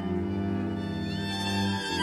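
String quartet of two violins, viola and cello playing a contemporary piece in sustained held chords, with a high note sliding upward about halfway through. The low notes drop out briefly near the end.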